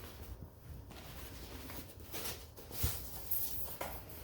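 Soft, uneven rustling and scraping of paper packaging as a hardcover book is handled in its cardboard sleeve, with a couple of light knocks about three seconds in.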